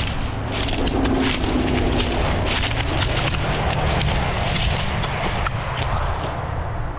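Footsteps crunching and rustling through dry, flattened reeds and grass, a dense irregular crackle, over a steady low rumble.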